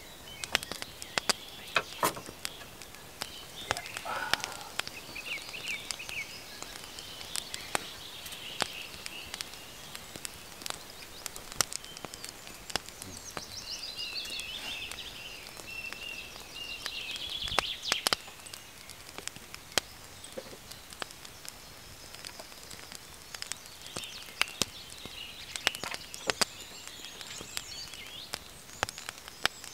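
Birds singing outdoors in short chirpy trills, heard now and then, over a steady faint outdoor background with irregular light ticks and taps throughout.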